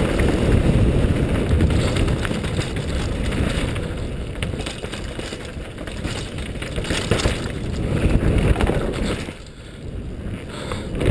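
Downhill mountain bike (2010 Cove Shocker) ridden fast: tyres rumbling and the bike rattling over gravel and rock, with scattered sharp knocks from rock hits and wind on the microphone. The noise dips for about a second near the end.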